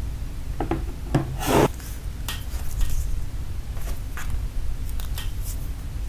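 Hands handling a smartwatch and its packaging. There is a short rubbing scrape about a second in, then a few light taps and clicks over a low steady hum.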